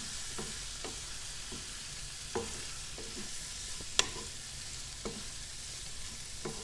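Chicken liver pieces sizzling in hot oil in a kadai while being stirred, the spoon knocking against the pan every second or so, with one sharp, loud clink about four seconds in.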